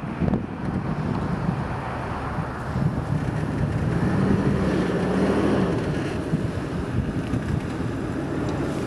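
Wind buffeting the microphone: a steady, rough low rumble, with a faint hum that rises and falls a little around the middle.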